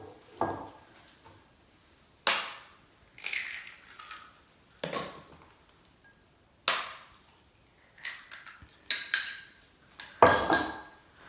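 Kitchenware being handled on a counter: a series of separate clinks and knocks of dishes and utensils being set down and moved, the last two near the end ringing briefly.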